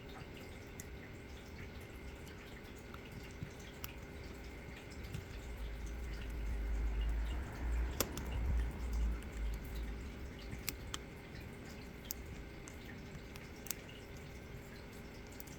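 Faint, scattered small metallic ticks and clicks from tools working inside an ASSA D12 pin-tumbler door lock. There is a sharper click about halfway through, and a low handling rumble in the middle.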